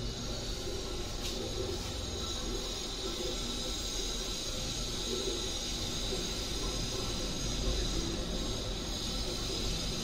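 Samsung 8 kg EcoBubble top-load washing machine draining its rinse water: a steady hum with water running out of the tub.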